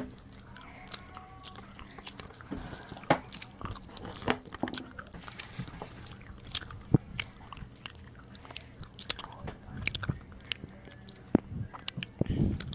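Scattered, irregular soft clicks and crunching as Play-Doh french fries are pressed into a Baby Alive doll's mouth.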